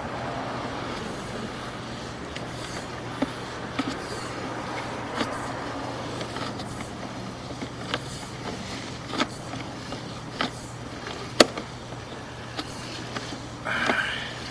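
Sewer inspection camera's push cable being pulled back out of the drain line: a steady low hum with scattered light clicks and knocks as the cable comes back, one knock louder than the rest.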